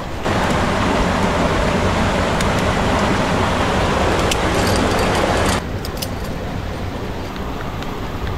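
Rushing stream water, a steady loud rush that jumps up just after the start and drops suddenly to a quieter rush about five and a half seconds in. A few light metallic clinks sound near the middle.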